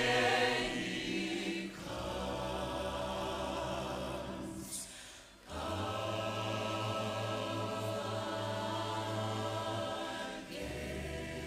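Choir singing long held chords a cappella, breaking off briefly about five seconds in, holding a second chord until near the end, then starting another.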